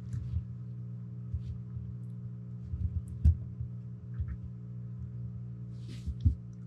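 Steady low electrical hum under soft, low thumps and light knocks from hands handling a plastic action figure on a cloth-covered tabletop. The sharpest knock comes about three seconds in, with another pair of thumps near the end.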